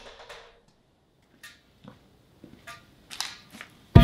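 A few faint scattered clicks and taps, then right at the end a sudden loud metallic clang from a painted steel truck wheel rim, which starts to ring with several clear tones.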